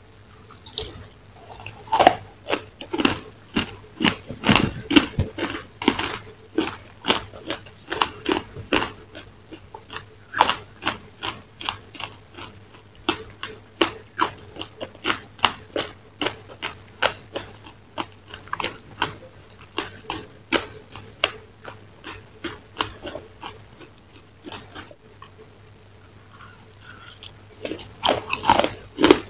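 Close-miked mouth biting and chewing a crunchy chocolate-coated dessert, with sharp crunches coming about two a second. They ease off a few seconds before the end, then come loud again.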